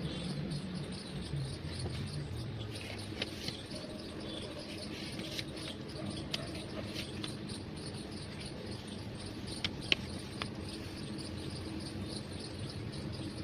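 Crickets chirping in a steady, rapidly repeating pulse, with a single sharp tick about ten seconds in.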